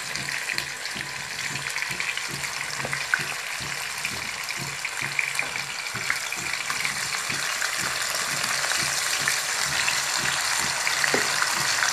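Marinated chicken sizzling and crackling as it goes into hot oil and ghee in a frying pan, growing louder as more pieces are added.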